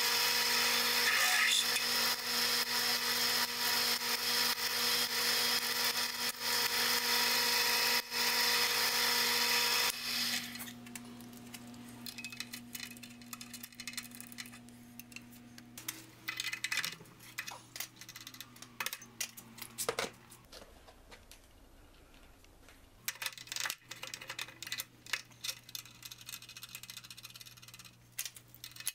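Mill-drill motor and spindle running with a twist drill cutting into a metal block, loud and steady for about ten seconds before the cutting noise drops away; the motor hum carries on briefly, then light clicks and clatter of chips and tools being handled follow.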